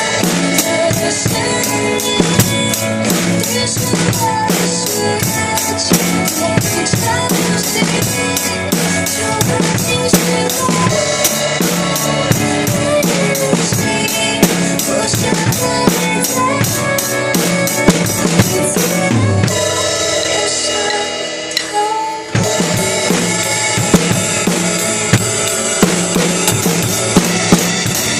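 Drum kit played along with a pop ballad backing track: steady cymbal strokes with kick and snare under the song's melody. About twenty seconds in the drums drop out for a couple of seconds, then come back in.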